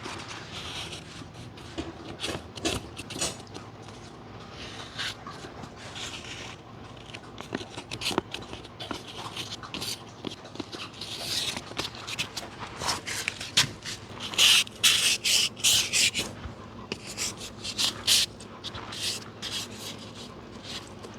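Hand sanding with 320-grit sandpaper: short, irregular rubbing strokes that come quicker and louder about two-thirds of the way in.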